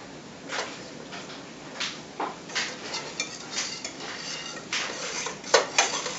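Metal spatula clinking and scraping against a non-stick skillet as it is worked under the edge of a thin pancake before turning it: a series of short sharp clicks, the loudest near the end.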